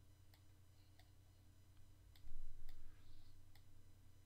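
Computer mouse clicks: a few scattered, faint sharp ticks over a steady low electrical hum, with a brief low bump a little over two seconds in.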